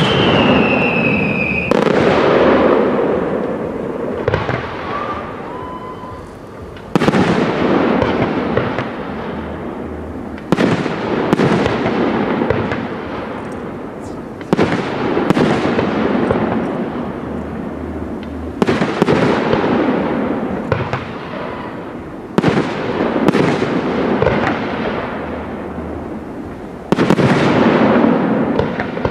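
Aerial fireworks shells bursting in a professional display: about ten loud bangs a few seconds apart, each followed by a long fading rumble. A short whistle falls slightly in pitch right at the start.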